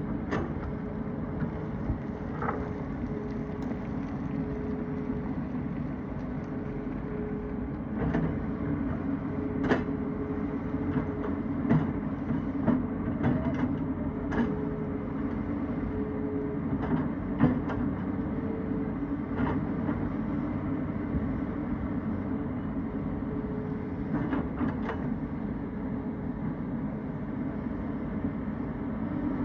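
Tata Hitachi excavator's diesel engine running steadily under load, with a held tone above the engine's drone. Sharp clanks and knocks come and go over it, most of them in the middle of the stretch, as the machine digs into rocky ground.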